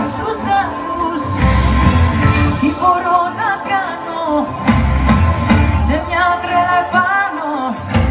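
A Greek pop song played live by a band with guitar, bass and drums, and a woman singing the melody into a microphone over a loud PA.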